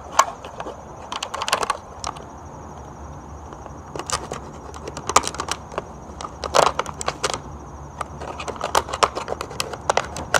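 Plastic water bottle being cut through near the top: irregular crackles and sharp clicks as the thin plastic crumples and gives way.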